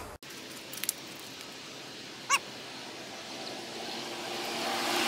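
A single short dog bark about two seconds in, over faint outdoor background. Toward the end a passing vehicle's noise swells.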